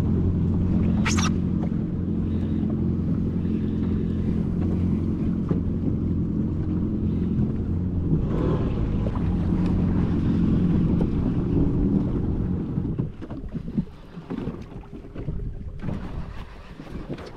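Jet ski engine running steadily at idle, a low even hum, that stops about thirteen seconds in and leaves only water slapping and wind.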